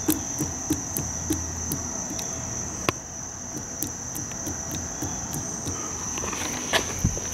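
Half-horsepower A.J. Weed marine steam engine running slowly on compressed air: a regular light knock and low chuff about three times a second over a steady high-pitched tone. A few louder knocks come near the end.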